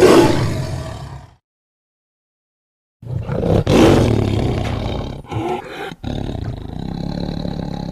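Tiger roaring: one short roar at the start, then a longer series of roars from about three seconds in, broken by two brief pauses.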